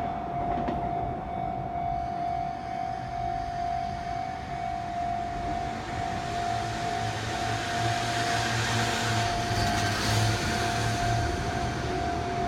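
Japanese railway level-crossing warning bell ringing on and on as a steady pulsing tone, over the rumble of a train that swells and fades about eight to eleven seconds in.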